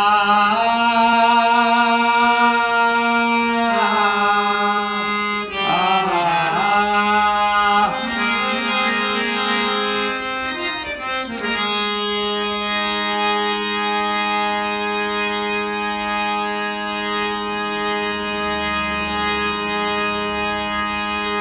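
Folk music: a man's singing voice holds long notes, sliding in pitch twice in the middle, over a steady droning reed instrument that carries on alone near the end.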